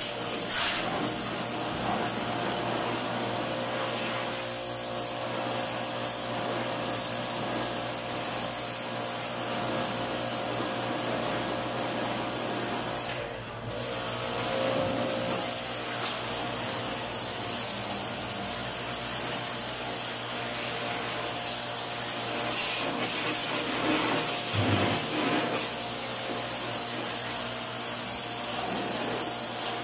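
Pressure washer running steadily, its water jet spraying onto a window-type air conditioner's coil fins to clean them. The sound dips briefly about halfway through.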